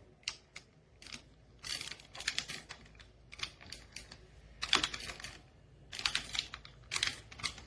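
A series of irregular sharp clicks and clattering rattles, in short clusters with gaps between them.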